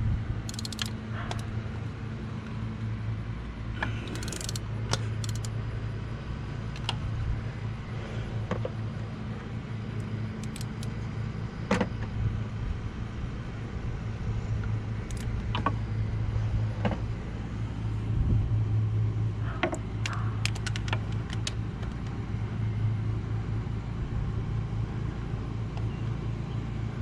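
Scattered metallic clinks and clicks of hand tools (socket, swivel and ratchet) working on a bolt, over a steady low hum.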